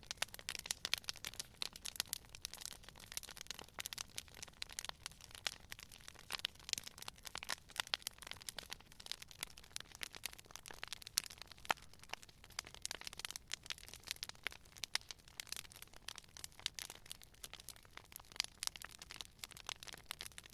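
Campfire of burning wood crackling and popping, a dense run of irregular sharp snaps that never lets up, with a few louder pops standing out.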